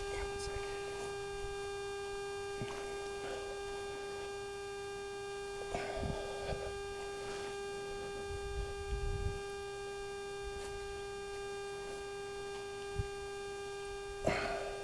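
Steady electrical hum, one held tone with evenly spaced overtones, over faint scattered rustling and knocks from mulch being spread by hand.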